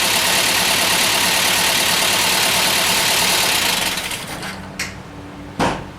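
Mazda B2200 four-cylinder engine running rough, firing on only two cylinders (numbers 3 and 4 dead). It is loud until about four seconds in, then drops away to a faint hum, with a short click and then a sharp knock near the end.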